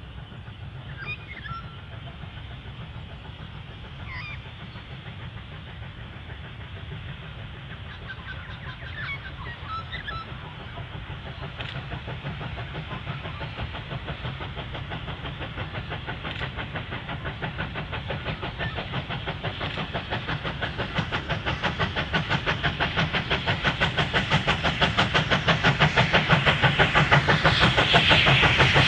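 Victorian Railways K-class 2-8-0 steam locomotive K160 hauling a mixed train toward the listener, its exhaust beats growing steadily louder as it comes closer. Near the end the hiss of steam escaping at the cylinders becomes the loudest sound. Birds chirp a few times in the first ten seconds.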